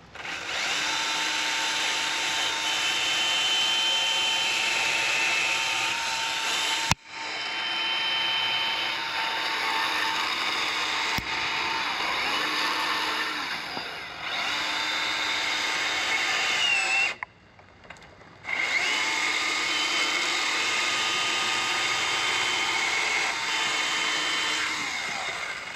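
Milwaukee M18 battery-powered top-handle chainsaw cutting wood: a steady electric motor whine over the chain's cutting noise. About two-thirds of the way through it stops for a moment, then starts up again. The saw stalls out under light pressure, a fault the owner cannot explain.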